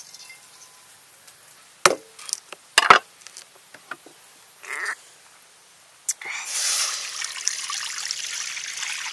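A few sharp knocks while a green coconut is opened, then, from about six seconds in, coconut water pouring in a steady splashing stream into a metal wok.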